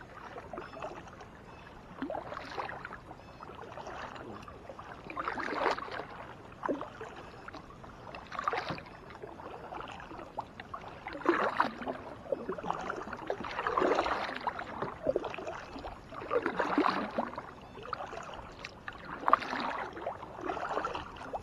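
Strokes of a double-bladed kayak paddle dipping into calm lake water, a splash about every two and a half to three seconds.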